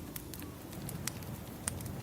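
Crackling wood fire, with several sharp pops scattered through it, the loudest near the end, over a steady low wash of ocean waves.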